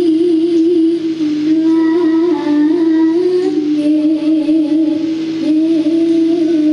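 Live campursari music: a gamelan ensemble playing under one long, gently wavering melody line that steps slowly up and down in pitch, with other melodic lines moving above it.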